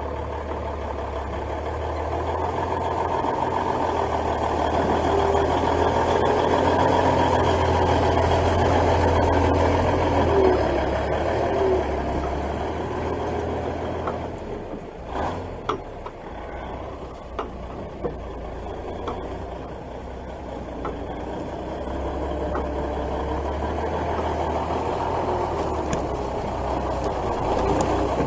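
An M816 6x6 military wrecker's six-cylinder Cummins diesel engine running. It grows louder over the first several seconds, eases off past the middle, where a few sharp knocks and clicks are heard, and rises again near the end.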